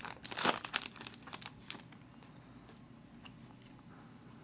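A foil hockey card pack wrapper is torn open and crinkled, with sharp crackling rustles in the first couple of seconds. After that come only a few faint ticks of the cards being handled.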